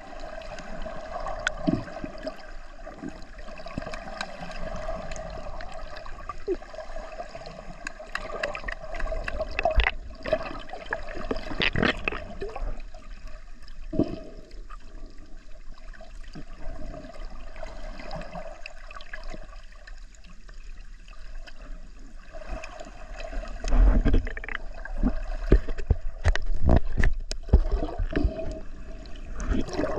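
Water gurgling and sloshing around a camera held underwater, with many small knocks and a steady hum under it for much of the time. Louder thumps and knocks come in the last few seconds.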